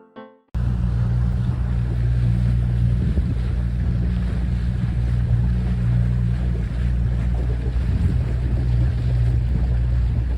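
An engine running with a steady low hum, with wind rushing over the microphone.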